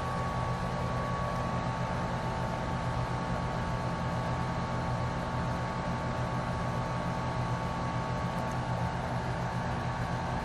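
A steady mechanical hum with hiss and a couple of steady high tones, unchanging throughout.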